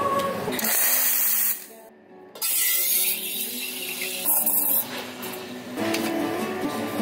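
Espresso machine steam wand hissing as milk is steamed in a stainless steel pitcher. The hiss drops out briefly about two seconds in and returns.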